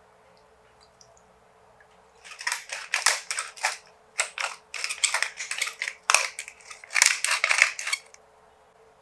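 Black pepper and sea salt mills being twisted by hand, grinding in many quick crunching turns, in a few runs with short pauses. It starts about two seconds in and stops about a second before the end.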